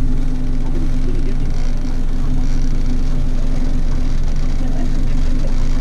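Boat engine running steadily underway, a constant low hum under heavy wind and water rush.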